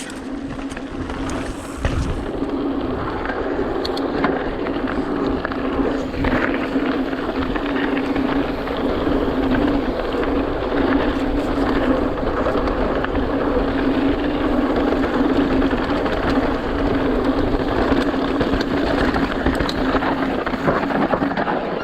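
Mountain bike riding down a rough dirt trail: tyre and trail noise with rattles and occasional knocks from the bike, wind on the microphone, and a steady low hum throughout.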